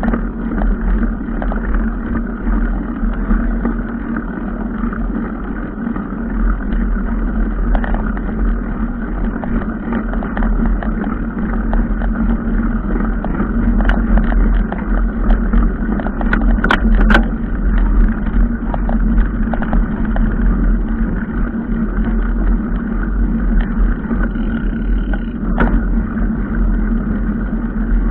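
A motor vehicle driving steadily over rough ground: a constant engine and road hum with frequent small knocks and rattles, the sharpest a couple of thuds over halfway through and one more near the end.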